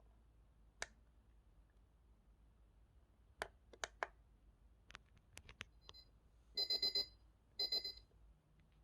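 Buttons on a USCCE digital alarm clock radio clicking several times, then its electronic alarm beeping in two quick bursts, four fast beeps and then three, about a second apart near the end.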